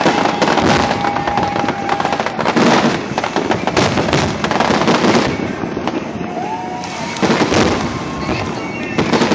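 Aerial fireworks display: a dense, continuous run of bangs and crackling, swelling into heavier flurries about three, five and seven to eight seconds in.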